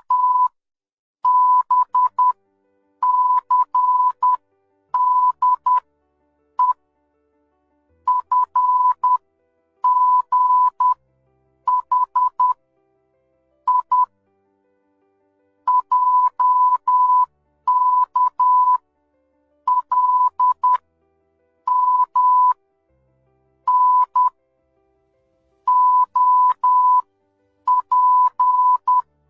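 Morse code sent as a steady beep near 1 kHz: groups of short and long beeps (dits and dahs), each group followed by a pause, one group after another.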